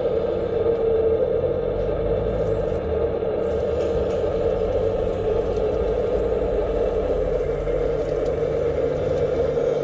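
Hydraulic pump of a 1/14-scale XDRC Liebherr 945 RC excavator running with a steady hum.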